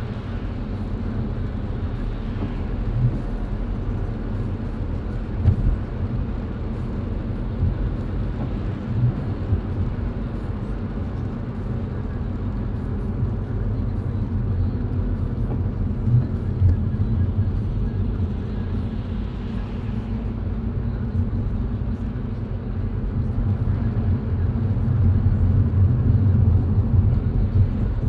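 A car being driven, heard from inside: a steady low rumble of tyres and engine, with a few brief thumps, growing louder near the end.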